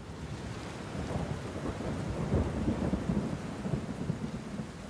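Thunderstorm sound effect: a steady hiss of rain with a low rumble of thunder that swells about two seconds in and fades near the end.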